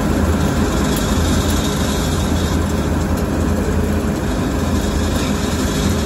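Heavy diesel farm machinery running steadily, a loud, even engine hum with a deep low drone.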